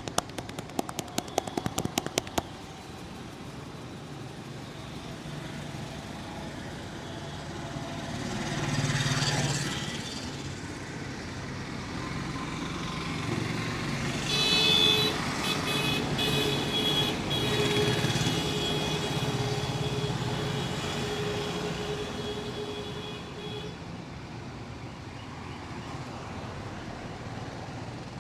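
Street traffic going by steadily, with a long steady tone of several stacked pitches holding for about nine seconds through the middle before it stops. A quick run of clicks in the first couple of seconds.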